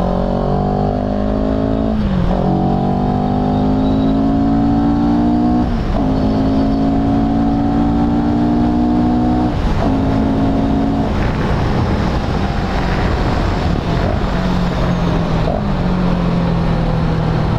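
CFMOTO 700 CL-X's parallel-twin engine accelerating through the gears. Its note climbs in each gear and drops at upshifts about two, six and ten seconds in. Then the throttle comes off: the engine note sinks under wind rush and settles into a steady lower drone.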